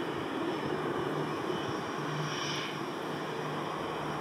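Jet engines of a Boeing 787-9 airliner rolling out on the runway after touchdown, a steady rushing jet noise as the aircraft brakes and slows.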